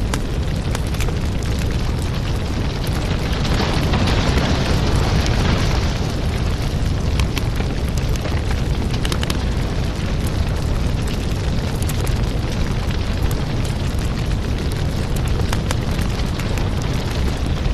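Firewood burning in an open fire: a steady rush of flame with frequent sharp crackles and pops of the wood, and a louder surge of hissing about four to six seconds in.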